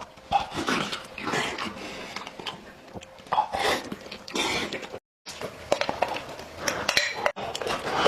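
Close-miked eating sounds of a man chewing and smacking his lips on boiled chicken, in irregular wet bursts with small clicks. The sound cuts out briefly about five seconds in.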